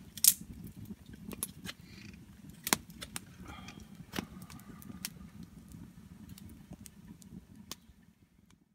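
Wood campfire crackling, with irregular sharp pops over a low steady rumble of the burning logs. It cuts off suddenly at the very end.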